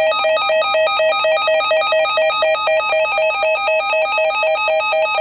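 Electronic alert tone warbling rapidly between two buzzy pitches, about five cycles a second, steady and unbroken.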